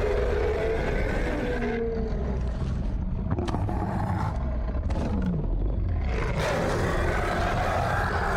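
Low, continuous rumbling growl, like a monster growl sound effect, steady in loudness throughout.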